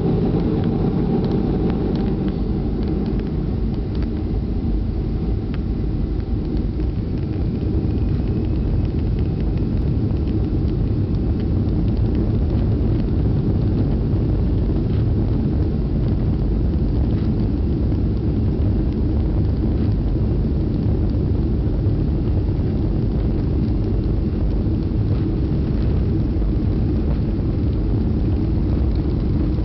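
Boeing 737's CFM56 turbofan engines and the runway rumble during the takeoff roll, heard from inside the cabin over the wing: a steady, loud, low rumble. A faint steady tone fades out over the first ten seconds or so.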